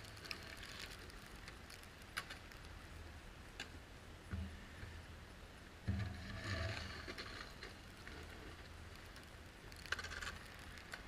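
Car running on a drive through a snowstorm: a steady low engine and road hum, with scattered clicks and a louder thump about six seconds in.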